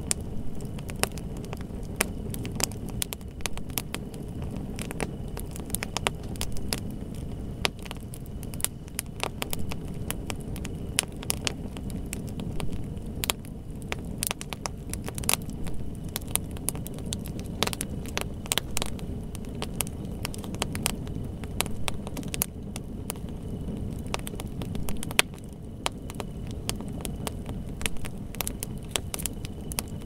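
Wood fire burning: irregular sharp crackles and pops, several a second at times, over a steady low rumble.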